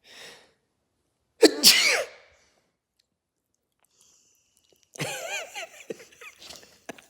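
A person sneezes once, loudly, about a second and a half in. A few seconds later comes a wavering, pitched vocal reply, followed by several shorter sounds.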